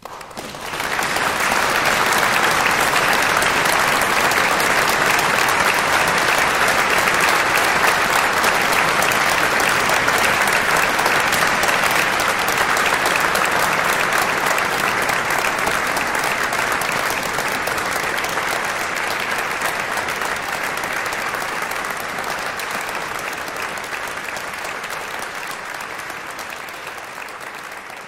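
Applause from many people clapping, starting abruptly, full within about a second, holding steady and then slowly fading over the last several seconds.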